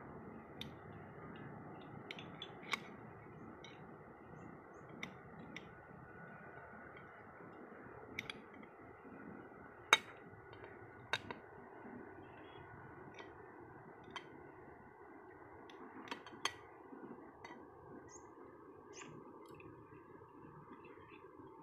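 A knife clinking and scraping against a plate as food is cut on it, in irregular sharp clicks, the loudest about ten seconds in. The clicks stop near the end, leaving a faint steady hiss.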